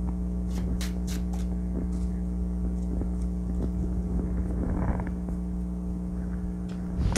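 Steady low electrical hum with several steady tones over it. A few light clicks in the first second or so and a soft rustle about five seconds in come from playing cards being handled on a cloth-covered table.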